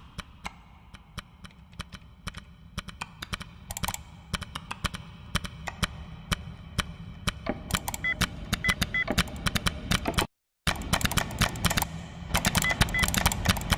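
Rapid, irregular clicking of computer mice and keys, growing denser, layered over a low steady drone. A few short high beeps come near the end, and it cuts out for a moment about ten seconds in.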